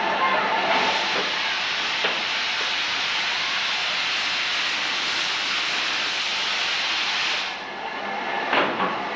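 LMS Stanier Black Five steam locomotive No. 5231 venting steam in a loud, steady hiss that starts about a second in and cuts off suddenly near the end. A couple of short knocks follow.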